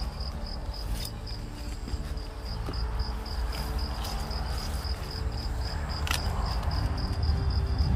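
An insect chirping outdoors in a steady, high-pitched pulse, about four to five chirps a second, over a low rumble and a few faint clicks.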